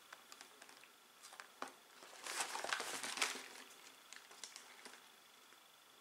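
A cardboard box being handled and turned over in the hands, its packaging crinkling and scraping under the fingers with small clicks, busiest about two to three seconds in and dying away near the end.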